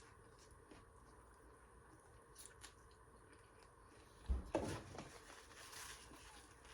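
Quiet eating sounds: a person chewing with small mouth clicks, and a louder knock with a short rustle about four seconds in.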